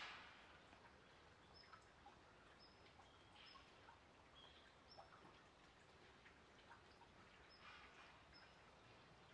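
Near silence with faint, short, high bird chirps every second or so. A brief rustle is heard right at the start.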